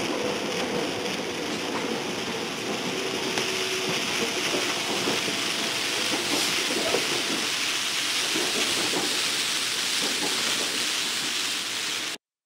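Inside a moving commuter train carriage: steady rushing noise of the train running, which cuts off abruptly near the end.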